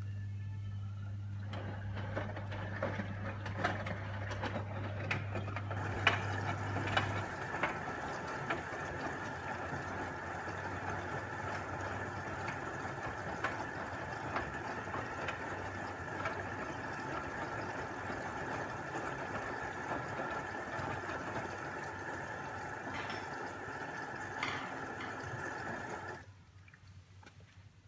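A machine running steadily with a whir and a light rattle. A low hum under it stops after about seven seconds, and the running cuts off suddenly about two seconds before the end.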